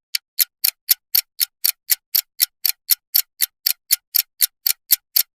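Clock ticking: evenly spaced sharp ticks, about four a second.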